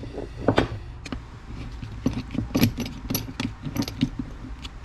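Small metal parts of a shifter lever assembly clicking and knocking together at an uneven pace as they are handled and fitted back together.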